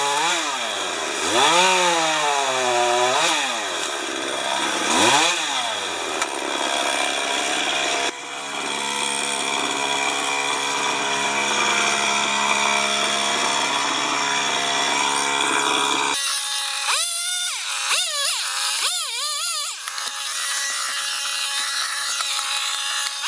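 Chainsaw revving up and down several times, then running at a steady speed. About two-thirds of the way through, the sound changes abruptly to thinner, higher revving of a chainsaw further off.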